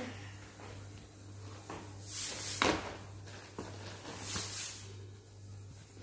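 A plastic courier mailer being torn and rustled open by hand: two short crinkling bursts about two seconds apart, with a sharp snap at the end of the first, over a steady low hum.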